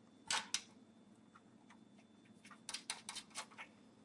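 Faint small clicks of metal thumb screws being turned by hand into a computer case's drive cage. Two quick clicks, then a run of about half a dozen more a couple of seconds later.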